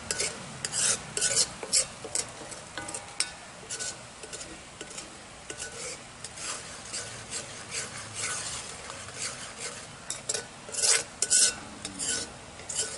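Metal spatula stirring and scraping thickened milk and sugar around a heavy-bottomed metal kadai in quick, irregular strokes, loudest near the end. This is the constant stirring of palkova once the sugar is in, which keeps the reducing milk from catching on the bottom of the pan.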